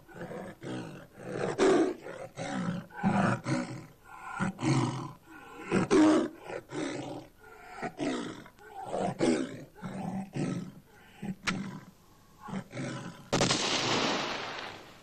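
Tiger snarling and roaring in short repeated bursts, then a single shot from a double-barrelled shotgun near the end that fades over about a second and a half.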